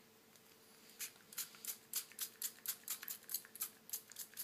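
Small pump spray bottle of screen-protector installation solution squirted in a quick run of short hissing puffs, about four a second, starting about a second in.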